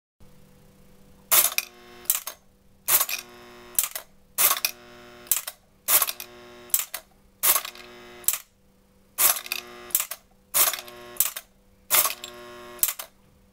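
Lionel ice-depot action accessory cycling: its worker-figure paddle mechanism clacks in pairs, a loud clack and a lighter one, about every one and a half seconds, over a steady electric hum.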